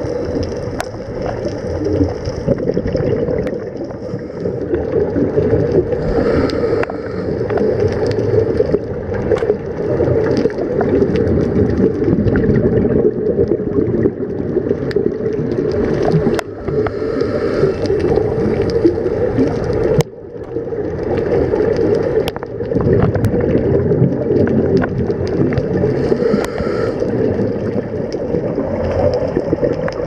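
Underwater sound picked up by a scuba diver's camera: a steady low gurgling rumble, with a brighter hiss that comes and goes every few seconds.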